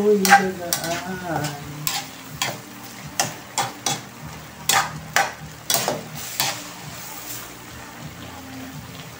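A metal spatula scrapes and knocks against a metal wok in irregular strokes while stirring sautéed bottle gourd and shrimp. The strokes are densest in the middle of the stretch, and a light sizzle from the pan runs underneath.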